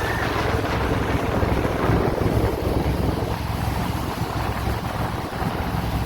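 Jet boat's big-block Ford 460 V8 running underway, a steady low rumble, with wind buffeting the microphone.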